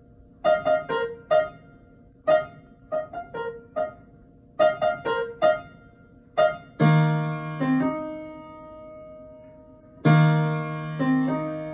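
A child playing a simple piece on an upright piano: short, separate notes in small groups, then from about seven seconds in louder notes over a low bass that are held and left ringing, struck again about ten seconds in.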